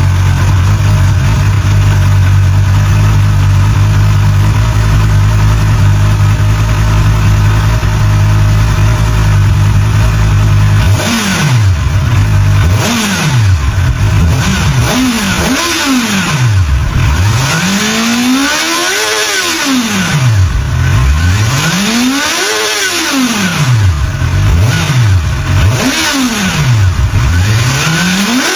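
Honda CB500SF's four-cylinder engine idling steadily, then, about eleven seconds in, revved up and let fall back again and again, each rev rising and dropping in pitch, some of the later ones higher and longer.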